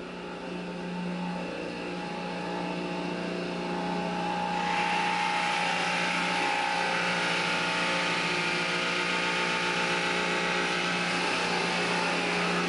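Drill press running a spade bit through melamine-laminated particleboard: a steady motor hum under a hissing cutting noise that gets louder about five seconds in as the bit bites deeper.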